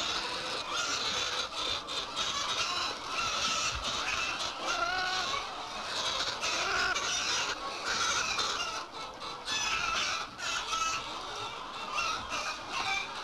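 A large flock of young chickens in a poultry shed, cheeping and clucking all together in a dense, unbroken chatter.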